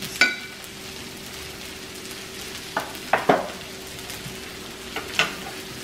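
Meat and vegetables sizzling steadily on a tabletop griddle, with a few sharp clinks over the sizzle, the first ringing briefly and two or three close together midway.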